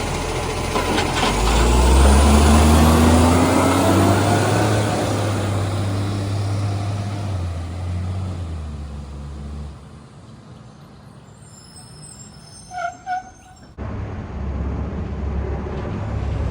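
Garbage truck's diesel engine, which has an exhaust leak, revving up and pulling away with a loud, rising drone that fades over about ten seconds. Two short beeps sound in the quieter stretch that follows, then the engine sound comes back abruptly near the end.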